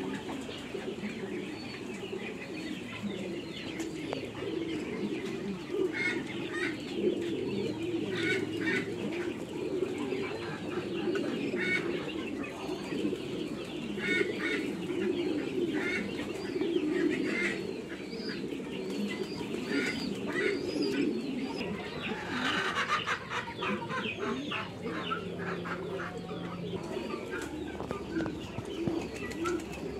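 Farmyard poultry calling: a continuous low chorus of calls, with short high peeps scattered through and a quick rattling run of high, sharp sounds about three quarters of the way in.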